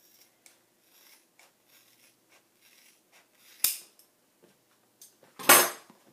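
Sewing scissors trimming a piece of interfacing in a run of small, faint snips, with a sharp click about three and a half seconds in and a louder knock near the end.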